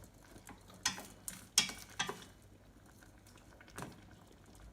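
A utensil knocking and scraping against a cooking pot as kumquats are mashed in simmering syrup: five sharp clinks, the loudest about a second and a half in.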